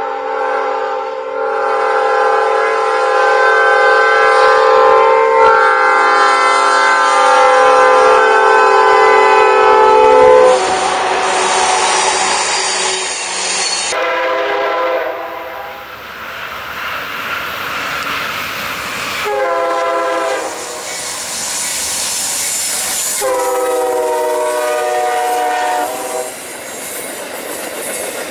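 Diesel locomotive air horn blowing a long sounding on approach, then the rush of the train going by. After a cut, an Amtrak passenger train sounds its horn in three blasts, the last the longest, as its cars pass with clickety-clack wheel noise on the rails.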